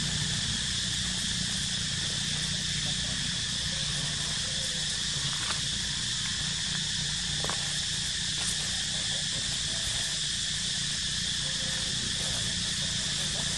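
Steady chorus of insects in the trees: a constant high buzz that never breaks, with a low steady hum beneath it and a few faint ticks.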